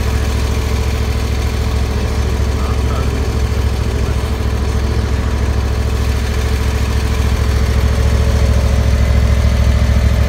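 Snapper Pro commercial mower's engine running steadily with a low drone, growing a little louder near the end.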